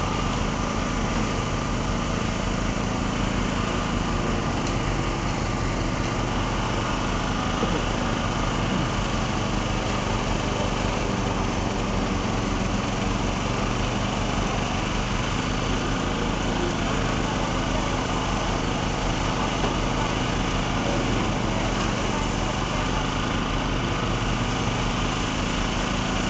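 Engine of the concrete-pour machinery running steadily at a constant speed, a low even drone with no revving.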